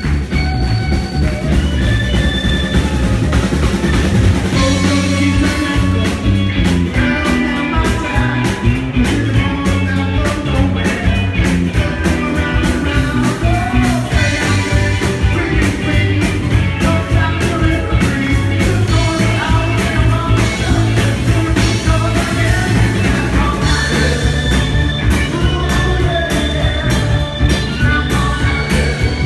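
Live rock band playing: electric guitars, bass and drums driving a steady beat, with a lead vocal sung over them.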